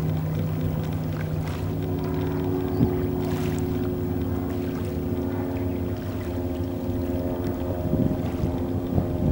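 Steady engine drone: a low, even hum made of several held pitches, one of them shifting about a second in.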